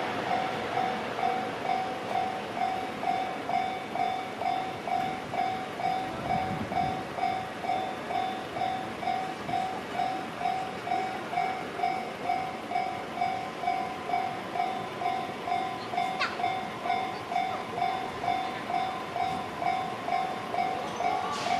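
Level-crossing alarm bell ringing steadily, about two strikes a second, over the noise of a train on the rails. A short falling squeal sounds about two-thirds of the way through.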